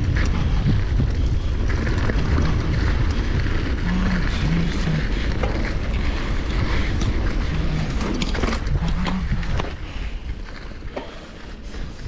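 Wind buffeting the microphone and mountain bike tyres rolling over a dirt trail at speed, with clicks and rattles from the bike. The noise drops about ten seconds in as the bike slows.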